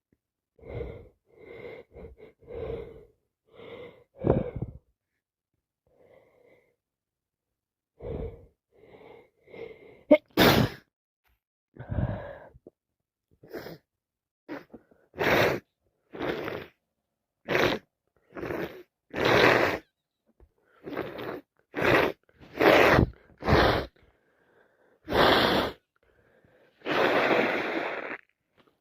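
A person with a cold and allergies sneezing over and over, with gasping in-breaths between. It starts with short breaths and sniffles, then after a brief lull the sneezes come close together, about one a second through the second half.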